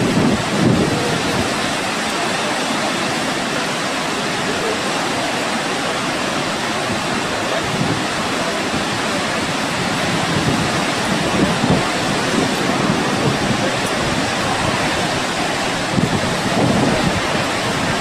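Steady rush of water from Gullfoss waterfall, with low gusts of wind buffeting the microphone.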